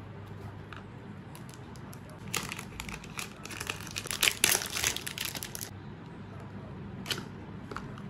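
Packaging being handled and opened, with a few seconds of crinkling and rustling in the middle and a couple of light clicks near the end.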